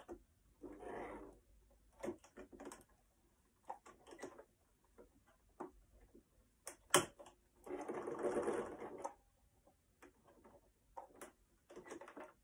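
Small electric domestic sewing machine stitching in short runs: a run of about a second near the start and a longer run of about a second and a half past the middle, with scattered clicks between and one sharp click just before the longer run.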